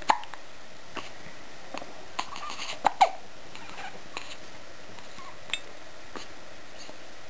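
A bout of hiccups: short, sharp hiccups at uneven intervals, the two loudest coming close together about three seconds in.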